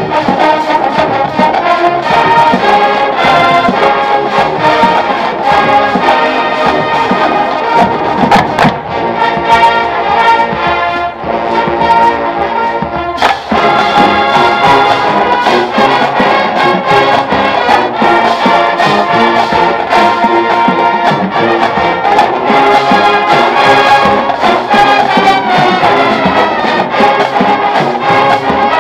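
College marching band playing, led by its brass over regular sharp percussive hits. It thins and softens for a few seconds about a third of the way in, then comes back in full with a loud accented hit about halfway through.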